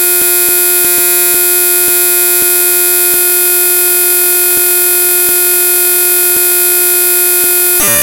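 Raw binary data of the ffmpeg.exe program file played back as audio: a steady, loud electronic buzz with a stack of overtones, broken by faint clicks roughly once a second.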